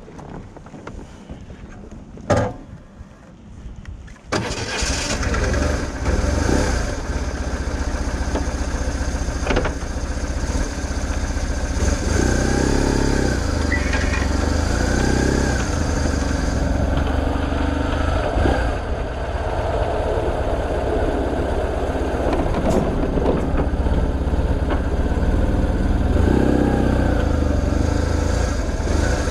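A sharp knock, then a BMW R1100RT's air/oil-cooled boxer twin starts at once about four seconds in and runs on steadily as the bike pulls away at low speed.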